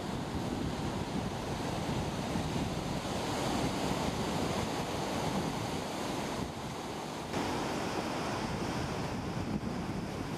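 Ocean surf breaking and washing in over the reef and shallows, with wind rumbling on the microphone.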